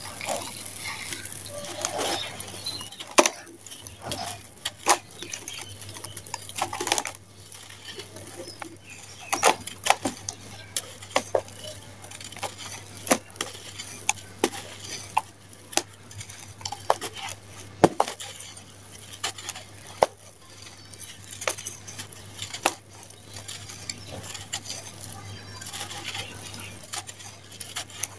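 Dry sand-cement lumps crumbled by hand, the grit and small stones pouring into a plastic basin: a gritty hiss with many sharp clicks and ticks.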